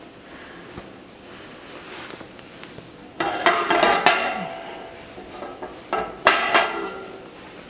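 A utensil clanking and scraping against a pot while butter is being melted and spread around it, in two bouts: one about three seconds in and a shorter one about six seconds in.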